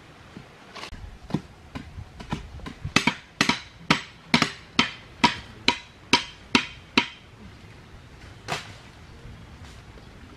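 Repeated strikes of a long-handled digging tool into hard, dry ground, about two a second with a faint metallic ring. They grow louder, stop about seven seconds in, and one last strike follows a little later.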